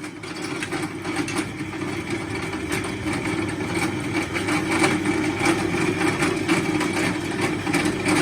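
Tractor engine running steadily with its stock mesh silencer, slowly getting louder.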